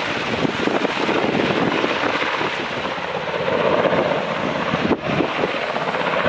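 UH-60 Black Hawk twin-turbine helicopter flying past, its main rotor and engines making a steady rushing drone that dips briefly about five seconds in.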